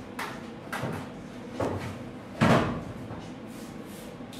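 A few separate knocks and clatters of metal baking trays of pizza dough being pushed into a low oven. The loudest comes about two and a half seconds in.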